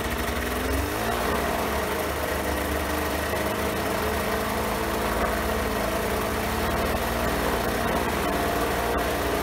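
Rotax 582 two-stroke twin aircraft engine running, turning a four-blade pusher propeller through its 3:1 reduction gearbox. Its pitch shifts briefly near the start, then holds steady.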